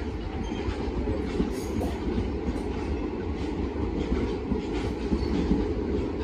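Blue ICF passenger coaches rolling past on the rails: a steady rumble of the wheels on the track, with repeated clicks as the wheels pass over rail joints.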